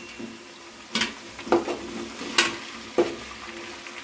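A spoon stirring chicken and ginger-garlic paste frying in oil in an uruli cooking vessel: a steady sizzle with about four scraping strokes against the pot, each leaving a brief metallic ring.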